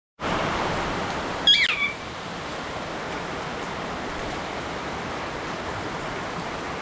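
Steady hiss of falling rain, with a pet parrot giving one short squawk with a gliding, up-and-down pitch about a second and a half in.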